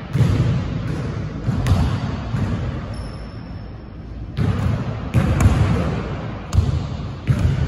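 Basketball bouncing on a hardwood gym floor, a string of heavy thuds each trailing off in the big hall's echo. The bounces ease off for a moment in the middle, then come again as the ball drops back down after a shot.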